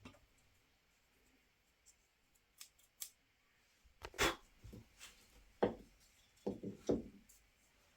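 Handling sounds with no machine running: a few faint clicks, then from about halfway on several louder rustling knocks, some with a dull thud.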